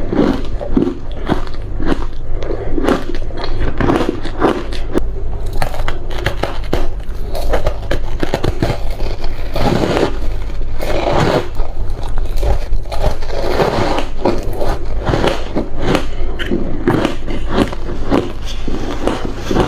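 Frozen ice bitten and chewed close to the microphone: dense, irregular crunching, several bites and crunches a second, over a steady low hum.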